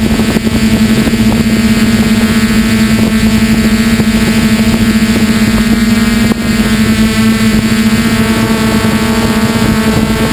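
Traxxas Aton quadcopter's motors and propellers humming steadily at one pitch while it hovers, heard from its own onboard camera.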